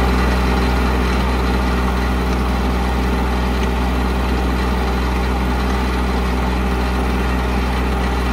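Tractor engine running steadily, heard up close from the driver's seat: a loud, even drone with a strong low hum that holds the same pitch throughout.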